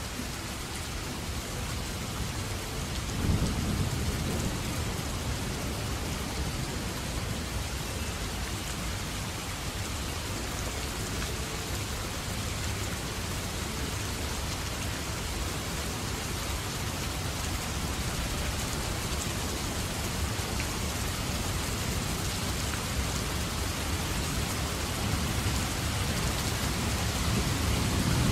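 Steady rain, with a low rumble that swells about three seconds in and again near the end.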